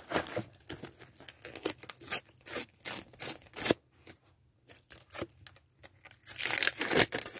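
Green foil sticker packet being torn open and crinkled by hand: a run of short rips and rustles, a pause of about a second midway, then a longer tearing rustle near the end.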